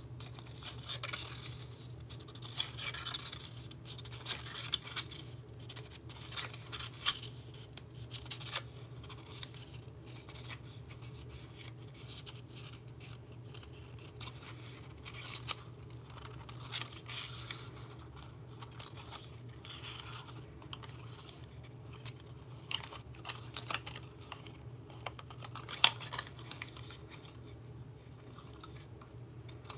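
Stiff cardstock being folded and creased by hand: scattered short crackles, rustles and scrapes of paper at an irregular pace, over a steady low hum.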